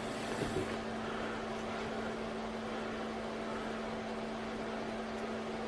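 Steady room background hum with a constant low tone, unchanging throughout.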